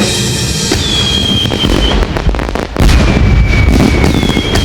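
Fireworks whistling and booming: long high whistles over deep rumbling bursts.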